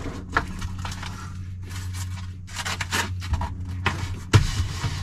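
Scraping and rubbing as hands push and handle the copper gas line and wires on top of an RV water heater tank. There is a sharp knock about four seconds in, over a steady low hum.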